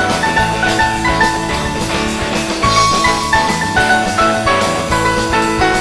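Instrumental rock music: a drum kit keeping a steady beat under a run of quick melodic lead notes.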